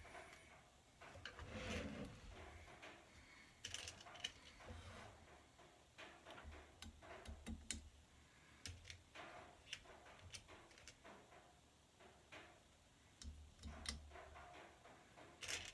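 Near silence with faint, irregular small clicks and taps scattered throughout.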